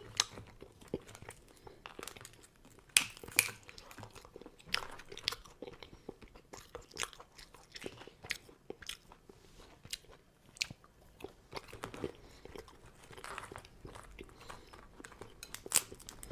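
Close-miked eating of crab: its shell cracking and crunching under the teeth, with chewing and scattered sharp clicks. The loudest cracks come about three seconds in.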